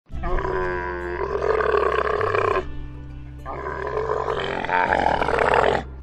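Two long animal calls, each about two and a half seconds, with a second's gap between them, over background music with sustained low notes.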